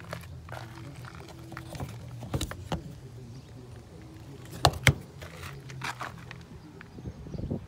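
Hinged plastic cover of an RV's 30-amp shore power inlet flipped open, then snapping shut with a sharp double click about five seconds in, over a steady low hum.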